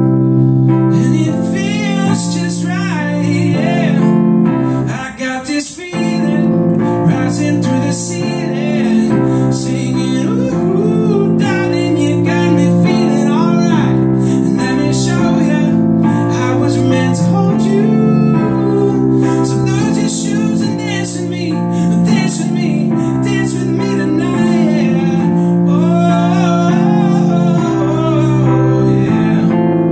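A man singing live over a Nord Electro 3 stage keyboard playing held chords that change every second or two, with a brief drop in loudness about five seconds in.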